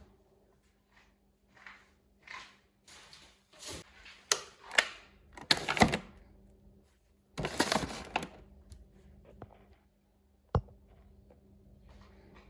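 Handling noises: a series of knocks, clicks and short rustling or scraping bursts, the two loudest around the middle, over a faint steady hum.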